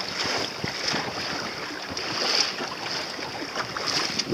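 Water splashing and lapping against the hull of a small sailing dinghy under way through choppy water, an uneven run of small slaps over a steady wash, with wind on the microphone.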